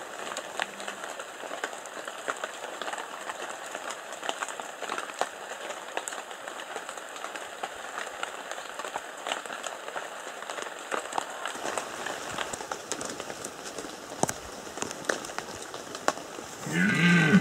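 Rain pattering on leaves and grass, with many small scattered drip ticks. Near the end a red deer stag starts a deep rutting roar.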